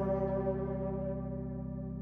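Background music: a held, slowly fading ambient chord over a low steady drone.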